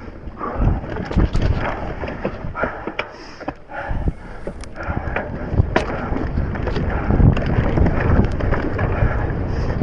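Transition Spur mountain bike ridden fast down a dirt trail: tyres rumbling over the ground and the bike rattling and knocking over bumps, with wind buffeting the microphone and the rider breathing hard. It gets louder and rougher about four seconds in.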